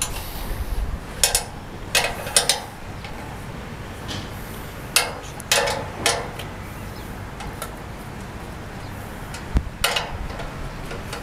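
Sharp metal clinks and clicks from a satellite dish's clamp bracket and mounting pole being worked by hand to adjust the dish's aim, several short knocks in small groups with pauses between, over a low steady rumble.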